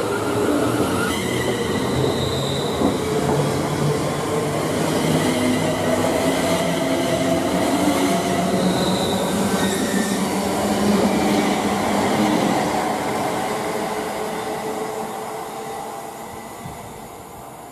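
Class 350 Desiro electric multiple unit pulling away past the platform, its traction motors whining and rising in pitch as it gathers speed over the rumble of wheels on the rails. The sound fades steadily over the last few seconds as the train draws away.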